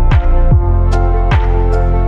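Electronic background music with a steady beat: a deep kick drum that drops in pitch on each hit, under held synth chords.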